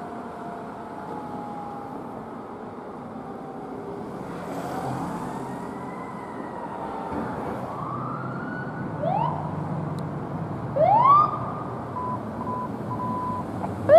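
Emergency vehicle sirens. Slow wailing glides fall and rise, then short, sharp rising whoops come about 9 and 11 seconds in and again at the very end; the last two are the loudest.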